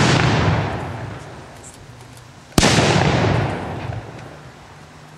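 Ceremonial salute shots from charges set on the ground and lit one at a time with a long pole: a sharp bang about two and a half seconds in, its echo fading over a couple of seconds, after the fading tail of the previous bang. The shots follow each other roughly every three seconds.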